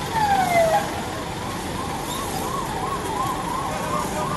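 Ambulance siren, a quick rising-and-falling yelp, with a loud downward sweep right at the start.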